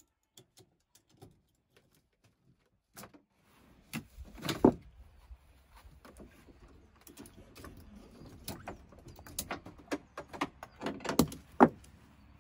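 Scattered clicks, clacks and knocks of tie-down strap buckles and hooks being handled and unfastened around a scooter held in a camper's garage. A few louder clacks come about a second and a half after the sounds begin and again near the end.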